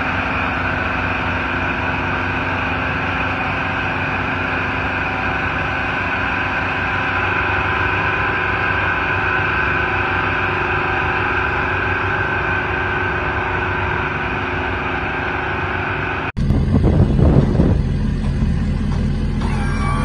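Heavy-haul tractor's diesel engine running steadily under load while pulling an oversize trailer, a held, even drone. About 16 seconds in it switches abruptly to a louder, rougher low noise.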